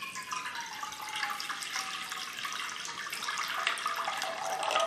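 Water poured in a steady stream into an empty kadhai (wok-like cooking pan), splashing on the pan's bottom, with a faint tone that slowly drops in pitch; the pouring stops near the end.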